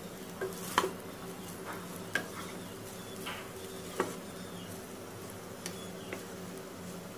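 Wooden spatula stirring and turning fried rice in a frying pan, with short irregular knocks of the spatula against the pan, the loudest about a second in. A steady low hum runs underneath.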